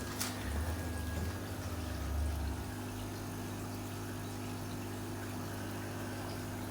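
Water sloshing and pouring as fish are let from a bucket into an aquarium, with a couple of clicks at the start. Over the last few seconds there is only the steady low hum of aquarium equipment.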